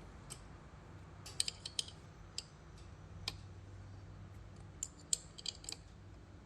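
Small sharp metallic clicks and ticks from a tool working the four screws that lock the resin printer's build platform while it is being levelled, coming in two quick clusters of several clicks with single clicks between, over a low steady hum.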